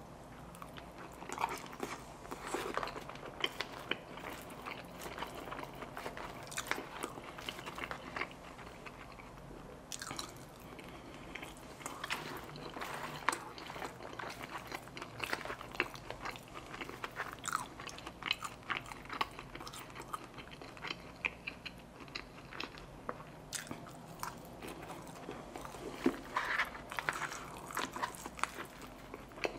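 A person chewing mouthfuls of carne asada fries, with many short crunches throughout.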